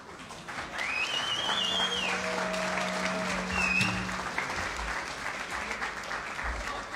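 Audience applauding, swelling about a second in, with a few held tones over the clapping.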